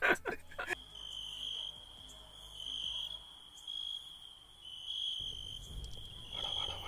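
Crickets trilling in a steady high note that swells in loudness about once a second, over a low background hum.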